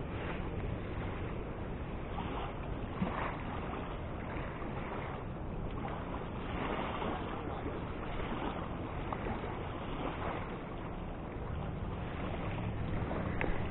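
Wind blowing on the microphone over the sound of river water, swelling and easing every few seconds.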